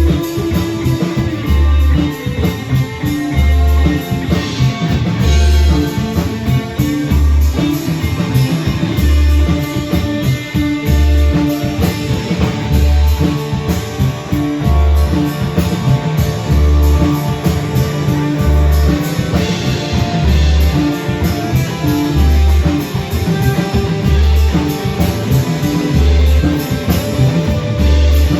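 Live band playing an instrumental passage: guitar over a drum kit, with a low bass note pulsing about once a second.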